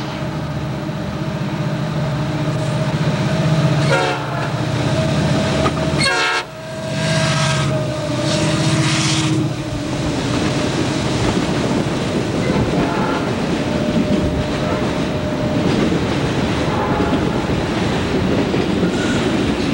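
Diesel-electric freight locomotives running as they pass close below, followed from about ten seconds in by freight cars rolling by on steel wheels over the rails.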